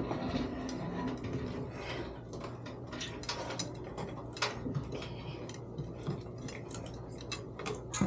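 Irregular metallic clinks, knocks and scrapes of a blower motor and wheel assembly being handled and fitted into the sheet-metal blower housing of a water source heat pump.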